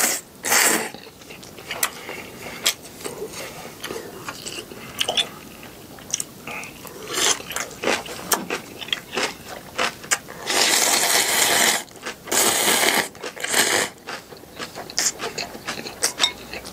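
A person eating clam noodle soup close to the microphone: slurping noodles and broth, chewing, with many small clicks. The longest, loudest slurps come about ten to thirteen seconds in.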